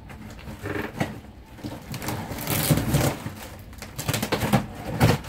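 Cardboard box and packed items being handled and shifted: irregular rustling and scraping with several knocks, the sharpest about five seconds in.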